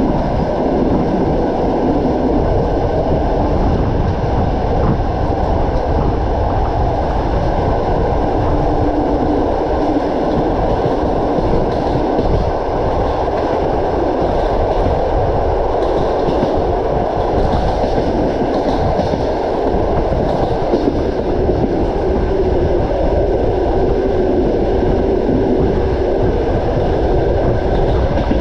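Passenger train running along the line, heard from inside a compartment coach: a steady rumble of wheels on rails.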